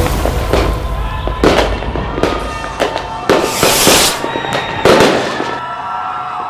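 Fireworks going off: sharp bangs and hissing, crackling bursts one after another, with lingering music tones underneath, all fading out toward the end.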